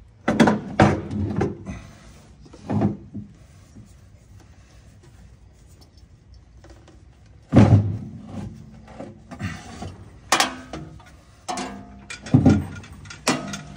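Irregular clunks and knocks, about seven in all, from hands handling a lifting strap and metal drivetrain parts around a vehicle's transfer case.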